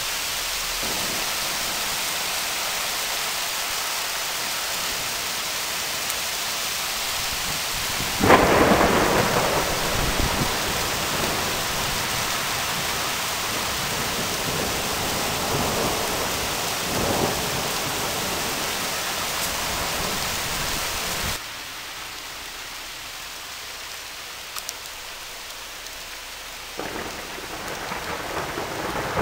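Thunderstorm with steady rain hiss. A loud thunderclap rolls into a rumble about eight seconds in, and fainter rumbles follow. The rain noise drops suddenly about two-thirds of the way through, and thunder starts building again near the end.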